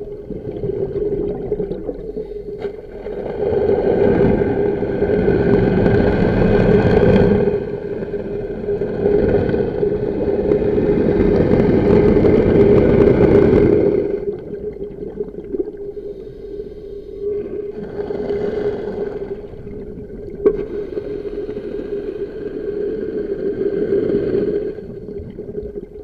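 Scuba diver's breathing heard underwater: long gurgling rushes of exhaled regulator bubbles, two loud ones in the first half and softer ones later, over a steady hum.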